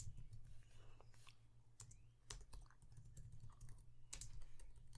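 Irregular, sparse keystrokes and clicks on a computer keyboard over a low steady hum.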